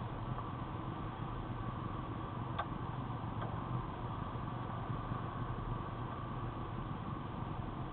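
Steady in-cabin driving noise of an Acura TSX on a wet road: a constant low engine hum with tyre and road noise. Two faint clicks come a few seconds in.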